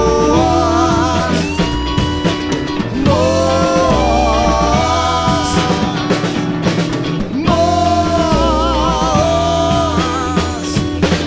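Rock band playing an instrumental passage: drum kit and bass under a guitar melody with bent, wavering held notes, the phrase restarting about every four seconds.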